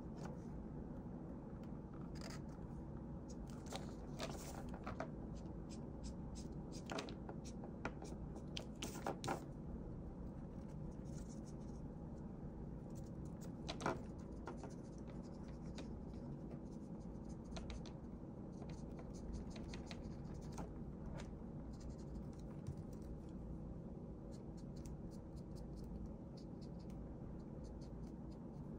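Acrylic paint marker tip scratching and dabbing on card, with scattered short taps and clicks, the loudest about fourteen seconds in.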